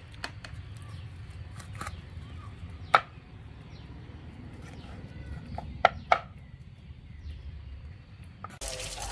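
Live catfish and snakeheads in buckets of water flapping now and then, giving a handful of sharp slaps and knocks against the plastic over a low steady rumble. The loudest knock comes about three seconds in, and two more come close together near six seconds.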